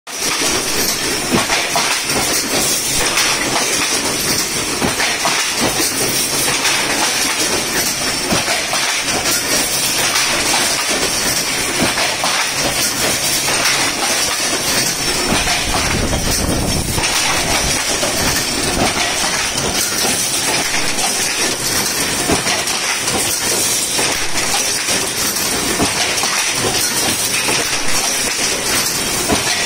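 Fully automatic coir brush mat loom running: a steady, dense mechanical clatter of rapid clicks and knocks with a steady high hiss over it, and a brief deeper rumble about halfway through.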